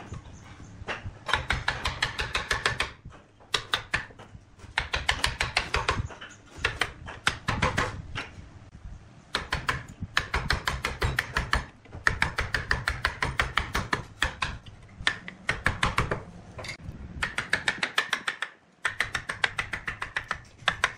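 Wood lathe running with a steady low hum while a hand-held chisel cuts the spinning spalted-wood blank, in repeated bursts of rapid clattering knocks, each one to two seconds long, with short pauses between them. The rapid knocking comes from the tool striking the uneven, ragged natural-edge rim on each turn of the blank.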